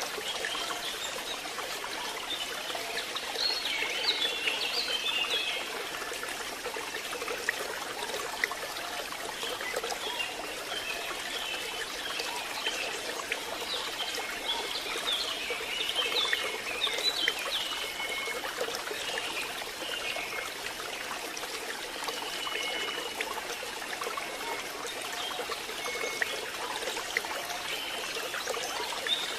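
Steady rain with water trickling and dripping, and short high chirps now and then throughout.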